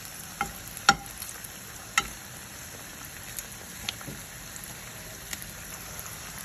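Garlic frying in olive oil in a nonstick frying pan, a steady sizzle, with a few sharp knocks on the pan: the loudest about a second in and at two seconds, lighter clicks later.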